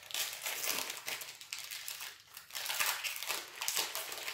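Foil wrapper of a Modern Horizons Magic: The Gathering booster pack crinkling and crackling in the hands as it is torn open and pulled off the cards, in several rustling stretches.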